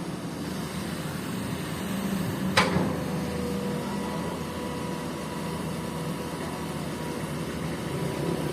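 Komatsu PC-200 excavator's diesel engine running steadily, with a single sharp knock about two and a half seconds in.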